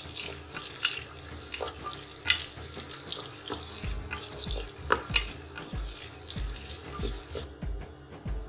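Chopped onions frying in hot ghee in a pressure cooker, stirred with a wooden spatula: a soft sizzle with irregular clacks and scrapes of the spatula against the pot. From about four seconds in a low hum pulses about every half second underneath.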